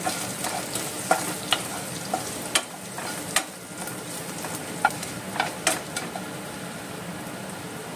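Chopped garlic, mustard seeds and cumin frying in oil in a kadhai, sizzling steadily while a spatula stirs. Scattered sharp clicks come through the sizzle.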